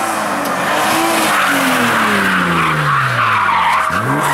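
Rally car sliding through a corner with its tyres skidding, its engine note dropping as it comes off the throttle, then revving sharply back up near the end as it accelerates away.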